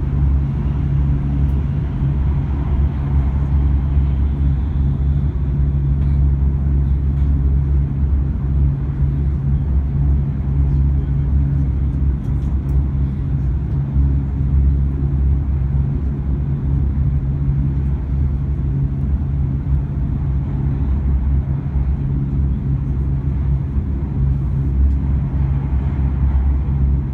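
Hokuriku Shinkansen train running at speed: a steady, loud low drone with a fainter rushing noise above it. This is the noise that the uploader calls abnormal.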